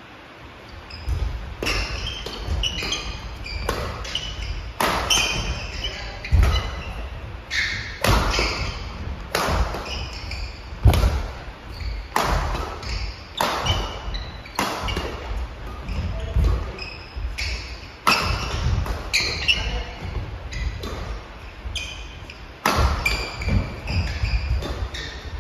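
Badminton doubles rally: rackets striking the shuttlecock about once a second, starting about a second in, with footfalls thudding and court shoes squeaking on a wooden gym floor, echoing in the hall.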